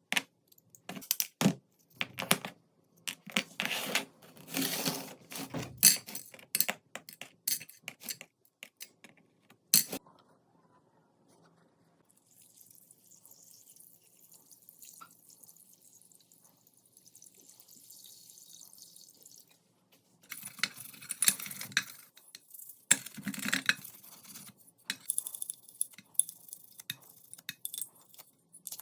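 Clicks, clinks and scraping as small metal pistol parts are handled and worked on, coming in irregular bursts. A quieter stretch of faint high hiss runs through the middle before the handling noise starts again.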